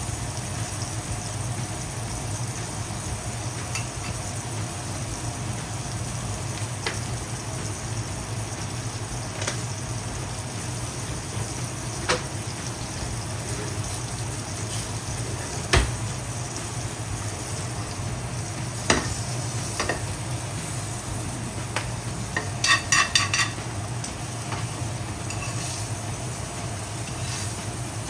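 Filet mignon frying in foaming butter in a stainless frying pan: a steady sizzle, broken by a few sharp clicks and a quick run of taps a little before the end.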